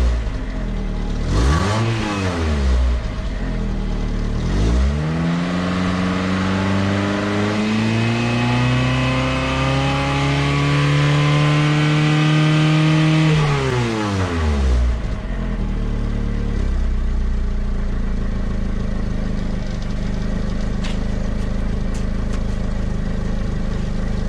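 Mazda car engine revved: a few short blips, then one long rev that climbs slowly for about eight seconds and drops back, after which the engine idles steadily.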